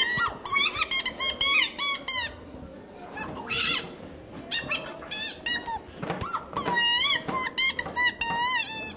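Costumed stilt performers making high-pitched, squeaky creature calls: runs of quick chirps with a wavering pitch, coming in several bursts with short gaps between them.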